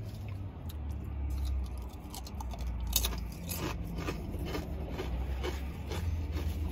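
A person chewing a mouthful of toasted Subway sub loaded with fresh vegetables, with many short crunchy clicks.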